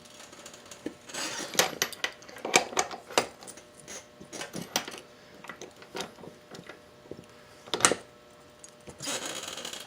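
Metal hand tools clinking against an ATV wheel hub in a scattered string of sharp clicks, with one louder clank about eight seconds in and a brief scraping rub near the end, as the castle nut is loosened to line up its cotter-pin hole.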